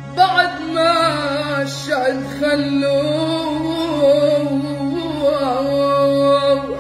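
A boy's strong voice singing a long, ornamented phrase in Eastern Arabic style, the pitch wavering and gliding over held notes, with a steady instrumental backing underneath. The last note is held for about a second near the end, then drops away.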